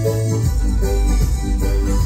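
Live band music played through a stage PA, with a heavy bass line under sustained keyboard chords.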